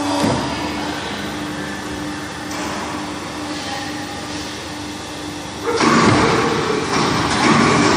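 Square-pipe end-forming machine running with a steady hum. Nearly six seconds in it turns sharply louder into a harsh grinding, squealing noise as it works.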